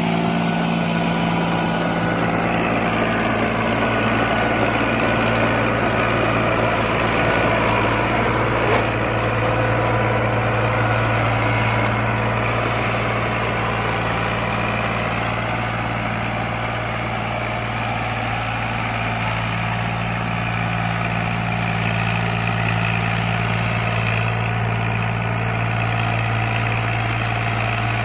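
Farm tractor's diesel engine running steadily as it pulls a rotavator tilling the soil.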